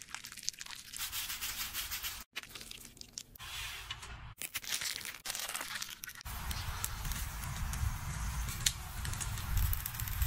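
Close-up food-prep sounds cut together: soft rustling and rubbing as ingredients are handled. From about six seconds in, meat and leek skewers sizzle and crackle over a charcoal grill, with a low rumble beneath.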